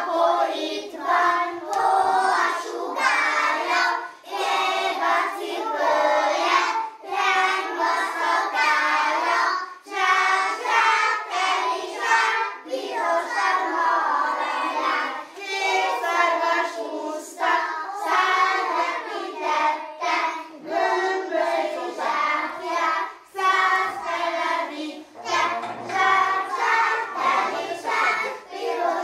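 A group of young children singing a song together in unison, their high voices in short phrases with brief pauses between them.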